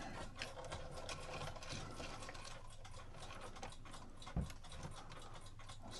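Light, irregular metal clicking and rattling as cuckoo clock chains are moved aside by hand, with one duller knock about four and a half seconds in.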